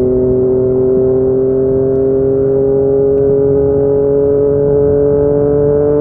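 Yamaha MT-09's inline three-cylinder engine running through a Yoshimura R55 slip-on exhaust, pulling in one gear with its pitch rising slowly and steadily.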